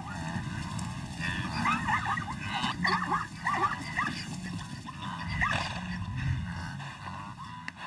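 Animal calls: a quick run of short, arching high calls, thickest in the first half, over a low steady rumble.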